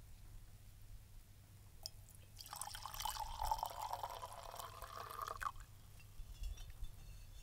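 Liquid poured from a clay jug into a clay cup: a splashing stream lasting about three seconds that rises slightly in pitch as the cup fills, then stops.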